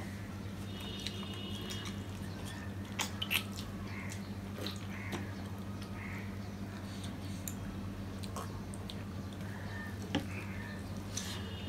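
Eating sounds of rice and fish curry being mixed and eaten by hand from steel plates: soft wet squishing and chewing, with a few sharp clicks of fingers or utensils against steel. A steady low hum runs underneath.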